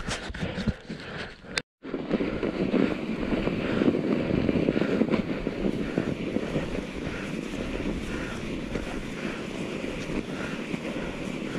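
Mountain bike rolling over snow: a steady rush of tyre noise with wind on the microphone. Near the start there are a few sharp crunching clicks, then a sudden break before the rush begins.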